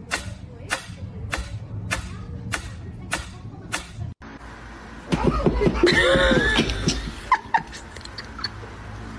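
Mechanical pendulum metronome ticking steadily, about three ticks every two seconds, until it cuts off about four seconds in. Then people laugh loudly for about two seconds.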